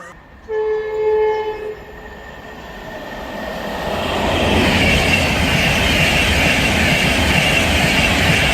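A train horn sounds once, a single steady note lasting just over a second. Then an InterCity 225 set, hauled by a Class 91 electric locomotive with a driving van trailer, passes through at speed, its rushing wheel and rail noise building over a few seconds to a loud, steady level.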